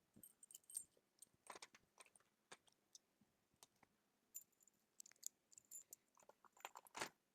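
Faint, scattered small clicks and light rattles of objects being handled, with a slightly louder cluster near the end.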